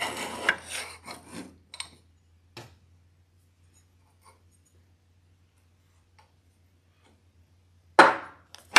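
Scratchy rubbing of metal against an aluminum angle on a wooden table: a few short strokes in the first two seconds, then almost nothing, then a loud scrape near the end as the metal pieces are shifted.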